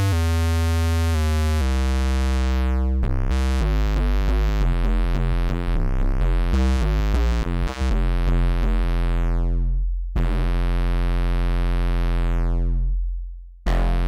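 Korg microKORG software synthesizer playing its ValveKickBass preset: a deep synth bass line rich in overtones. It starts on a few held notes, changes pitch several times a second through the middle, then holds one long note whose brightness sweeps down as the filter closes, and the note fades out shortly before the end.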